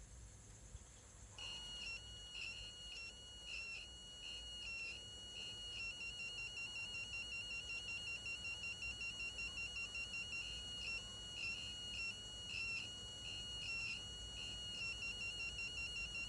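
The buzzer of a homemade blinking-LED circuit sounding a thin electronic tone, starting about a second and a half in. The tone steps between a few pitches and warbles rapidly in stretches, like a simple ringtone melody.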